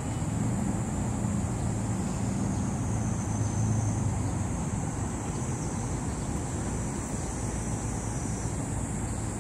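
Steady outdoor ambience: a rumble of wind on the microphone mixed with distant road traffic, under a steady high-pitched whine.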